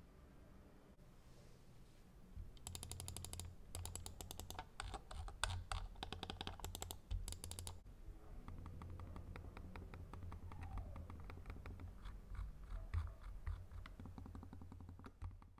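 Logitech Pebble wireless mouse being worked by hand: a fast run of quiet clicks starts about two and a half seconds in, strongest for about five seconds, then goes on lighter after about eight seconds.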